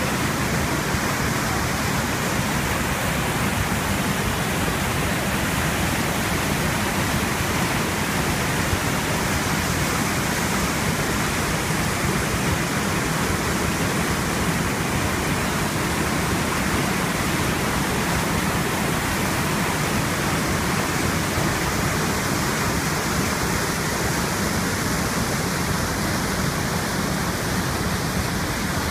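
A broad, low waterfall and the white-water rapids of a mountain river rushing steadily, a constant wash of water noise.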